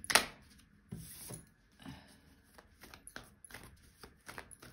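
A deck of tarot cards being shuffled by hand: a sharp slap of cards just after the start, then a string of soft, irregular flicks and taps.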